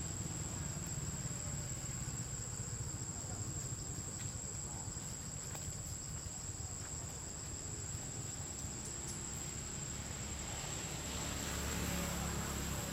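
Steady, high-pitched insect drone in forest, over a low rumble; a hiss swells briefly near the end.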